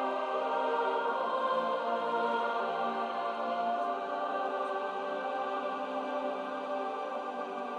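Background music with a choir singing long held notes.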